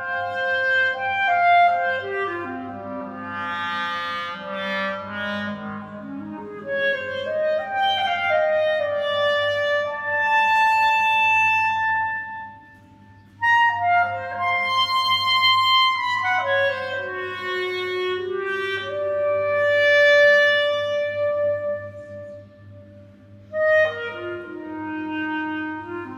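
Solo clarinet improvising, alternating long held notes with quick falling and rising runs, breaking off briefly twice. The notes ring on into one another in the concrete tunnel's echo, over a steady low hum.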